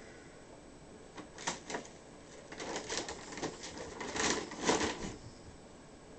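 A bag rustling and crinkling as a cat moves and plays inside it: a run of short scratchy bursts that starts about a second in, gets busier and loudest near the end, then stops.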